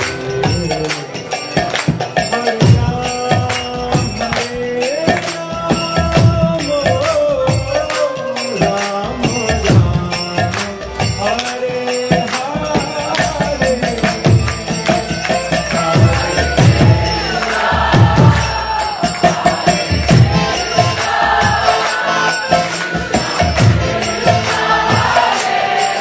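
Devotional kirtan: voices chanting a mantra over a steady beat of small brass hand cymbals (karatals), a double-headed hand drum and a brass gong.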